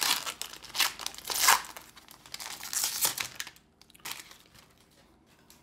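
A Pokémon trading-card booster pack's foil wrapper crinkling and tearing as it is opened by hand, in several short crackly bursts, the loudest about a second and a half in; the last sounds come about four seconds in.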